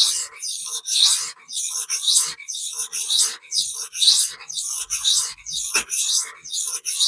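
Steel knife edge of AEB-L stainless being stroked back and forth on a 400-grit vitrified diamond sharpening stone, grinding steel off the edge in an even rhythm of about two strokes a second.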